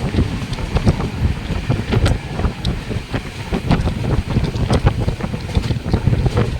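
Heavy wind buffeting the microphone: a loud, steady low rumble with many irregular clicks and knocks.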